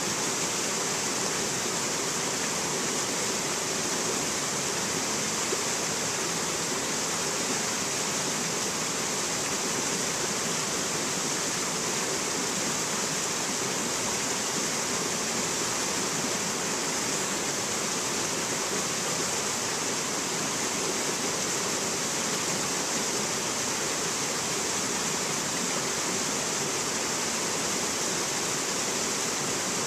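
Rocky stream rushing and cascading over boulders: a steady, even, hissing water sound.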